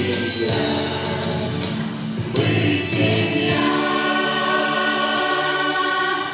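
Vocal ensemble singing the song in chorus over backing music. About halfway through, the voices hold one long sustained chord.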